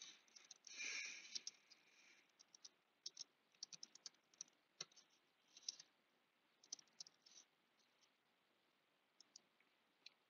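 Faint computer keyboard and mouse: scattered clicks and short runs of keystrokes, with a brief soft rustle about a second in.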